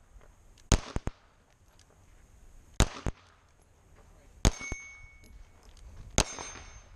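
Four pistol shots fired at a steady pace, about two seconds apart, at steel plate targets, with the clang of steel being hit. A couple of the hits ring briefly.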